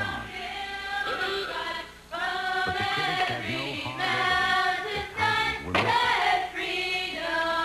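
Music with layered sung vocals, with a brief break about two seconds in.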